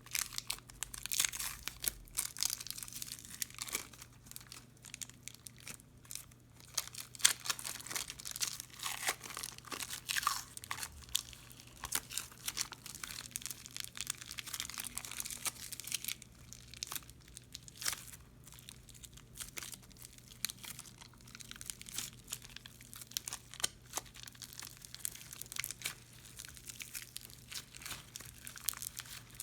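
Crunchy slime full of foam beads and seed beads being kneaded and squeezed by hand: a dense, continuous run of crackles and small pops.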